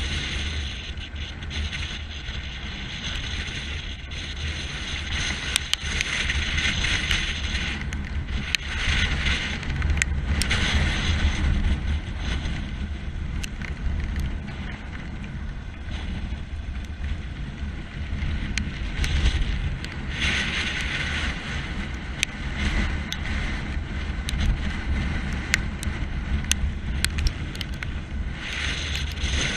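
Strong gusting wind buffeting a helmet-mounted microphone: a heavy low rumble with hissing gusts that swell and fade several times.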